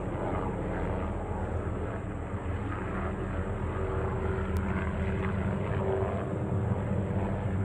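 Helicopter in flight: a steady drone of its engine and rotor with a low hum that holds unchanged.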